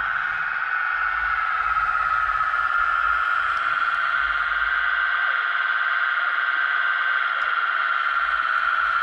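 Steady high electric whine from the motors of a radio-controlled 1:16 scale CAT 297D compact track loader. A low rumble underneath drops out about five seconds in and comes back near the end.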